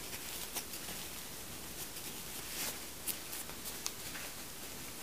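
Disposable diapers rustling and crinkling softly as hands shift and squeeze them in a rubber-banded ring, a few brief crackles over a steady low hiss.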